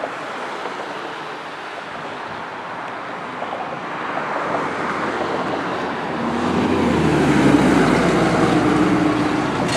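Steady roadside traffic noise, then a fire engine's engine grows louder as the truck drives past close by, loudest near the end. No siren.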